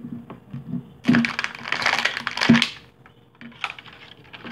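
Crinkly wrapper being peeled and torn off an LOL Surprise ball by hand: a burst of crackling from about a second in until nearly three seconds, with a sharp snap near its end, then softer rustles and clicks.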